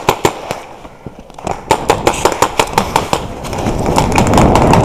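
Paintball markers firing: a few shots, a short pause, then a rapid string of shots about ten a second. From about three and a half seconds in, a rising rush of running footsteps and rustling gear.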